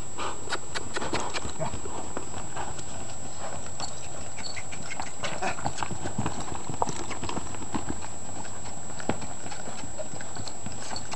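A ridden horse's hooves striking soft arena dirt in a quick, uneven run of hoofbeats as it lopes circles.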